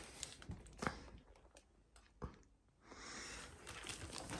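Faint handling of a plastic pack of paint bottles and its packaging: a few soft clicks and light rustling, with a near-silent stretch in the middle.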